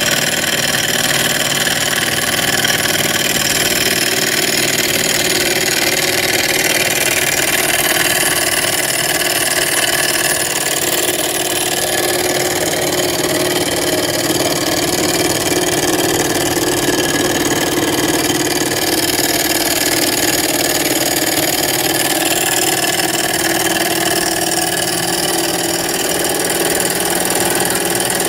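Small Stirling engine running steadily at full speed on an oxyhydrogen (HHO) torch flame, a continuous mechanical whir over the hiss of the flame, with a low hum that swells a little in the middle.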